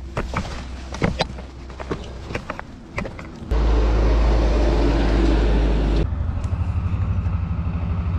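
Footsteps and small stones clicking and knocking as someone scrambles up a steep slope of crumbly rock. About three and a half seconds in, wind buffets the microphone loudly for a few seconds, then goes on as a rough, fluttering rumble.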